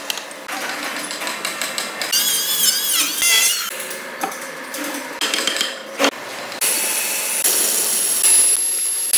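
Woodworking tool sounds in quick succession: a hammer striking a chisel into a timber beam, then sharp knocks on wood. A chainsaw cuts wood near the end, with a steady high whine over the last couple of seconds.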